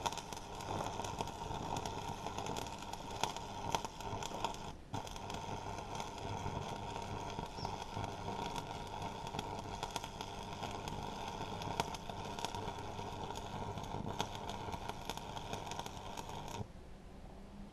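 Electric arc welding on a metal frame: a steady crackling sizzle with frequent sharp pops, breaking off briefly a few seconds in and cutting off suddenly near the end as the arc is broken.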